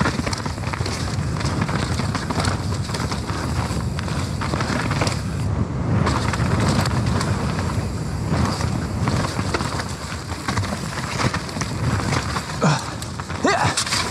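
Nukeproof Mega full-suspension mountain bike descending a wet, muddy trail: tyres rolling and scrubbing through mud over a steady rush, with constant clatter and rattling from the bike over rough ground.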